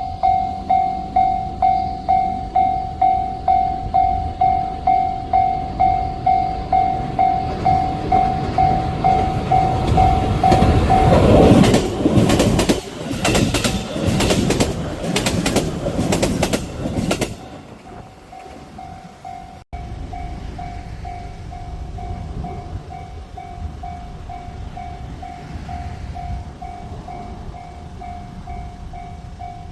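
Japanese railway level-crossing alarm ringing its repeated electronic clang about twice a second. About eleven seconds in, a JR Central electric commuter train passes, with a loud rush and fast clickety-clack of wheels over the rail joints for roughly six seconds. Once it has gone by, the crossing alarm keeps ringing, fainter.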